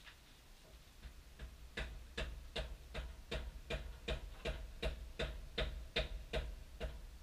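Ratchet wrench clicking in an even rhythm, about three clicks a second, each with a short metallic ring, as it is worked back and forth on a fastener in the car's engine bay. The clicking starts about two seconds in and stops shortly before the end.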